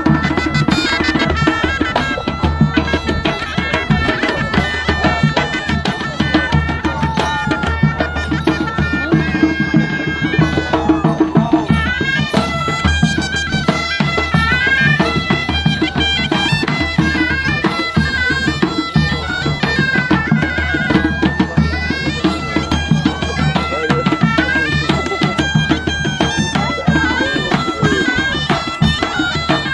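Folk music on bagpipes: a steady drone under a stepping melody, played loud and continuously over a beaten drum rhythm.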